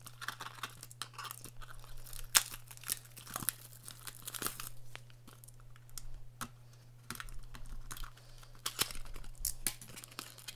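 A small retractable box cutter slitting the plastic wrap and sealed flap of a cardboard trading-card box, then the wrap and flap being pulled and torn open. Irregular scratchy rasps, crackles and clicks, over a steady low hum.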